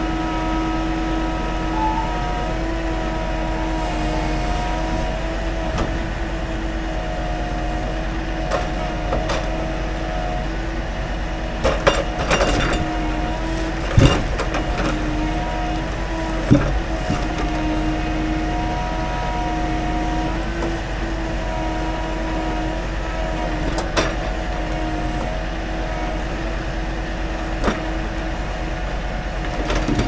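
Scania timber truck's engine running to drive its loader crane's hydraulics, a steady drone with a humming whine, as the crane grapple lifts pine logs off the load. Several sharp knocks of logs bumping against each other and the load, the loudest about halfway through.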